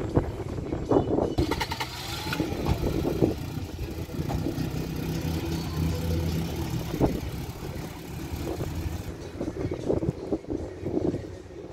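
A vintage vehicle's engine running at low revs with a steady low hum, alongside people talking.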